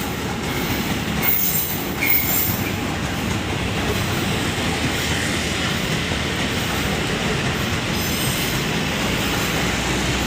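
KRL Commuter Line electric train passing close, with a steady rumble of wheels on rail and clickety-clack. Short high wheel squeals sound about one and two seconds in.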